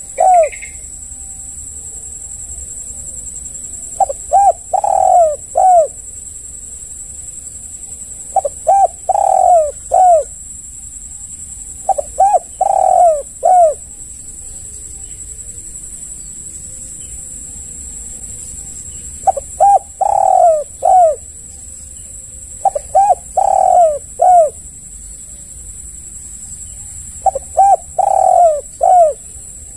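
Spotted dove (tekukur) cooing: rhythmic phrases of four or five quick notes, repeated about every four seconds, with a longer pause in the middle. A steady high-pitched hiss runs underneath.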